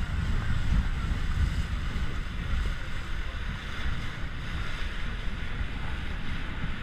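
Wind buffeting the microphone on a moving boat, over the steady rush of water churned up along the hull and in its wake.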